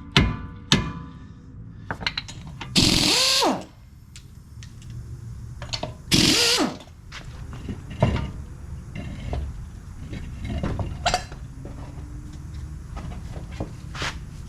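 Two short bursts of a power tool on a seized tie rod nut, one about three seconds in and one about six seconds in, each falling in pitch as it winds down; the nut will not break loose. A few sharp metal knocks near the start and light clicks of tools follow.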